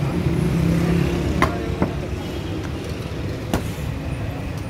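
Naan dough being patted and handled by hand, with a few sharp slaps, over a steady low rumble.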